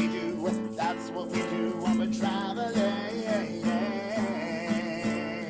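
Acoustic band music: strummed acoustic guitar with regular strokes, and from about two seconds in a voice holding a long note with vibrato.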